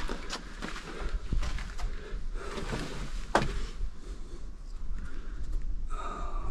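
Footsteps and scuffing with scattered knocks and rustling over a steady low rumble, and a brief pitched sound near the end.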